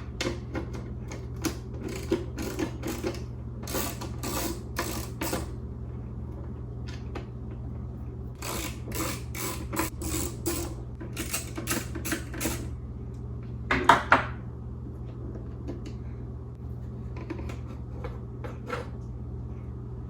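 Handwork on the instrument cluster of a 1973–79 Ford F-series truck: runs of sharp plastic clicks and snaps as the cluster's front cover is worked free, with a louder pair of knocks about two-thirds of the way through, over a steady low hum.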